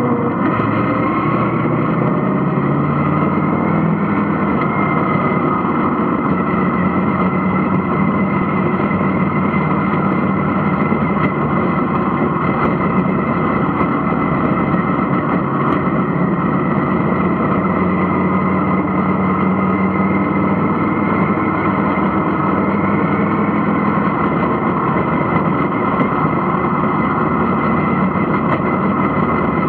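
Vintage-class dirt-track stock car engine, heard from inside the cockpit. It climbs in revs over the first few seconds, then runs loud and fairly steadily at racing speed.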